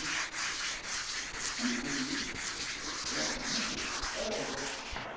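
Hand wet sanding of black single-stage paint with fine-grit sandpaper, rubbing in steady strokes over the wet panel to level the orange peel.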